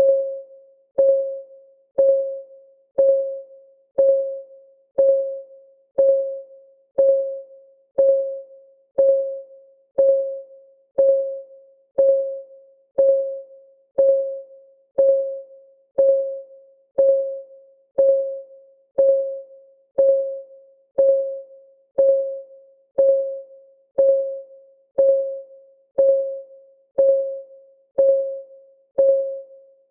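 Clock ticking of a countdown timer: one tick every second, each a short pitched tock that rings briefly and dies away.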